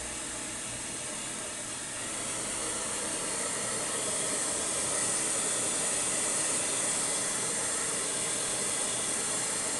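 Handheld hair dryer running steadily, a continuous rushing hiss of blown air that grows a little louder about two seconds in.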